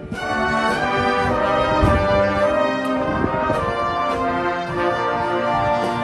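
Marching band's brass section playing held chords, with a few low drum hits, coming back in strongly just after a brief drop at the start.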